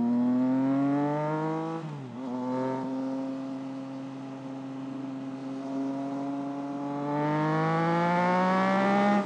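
Triumph Trident 660's three-cylinder engine pulling under hard acceleration, its pitch rising. There is a short dip in pitch and loudness about two seconds in, then it climbs again and gets louder over the last two seconds.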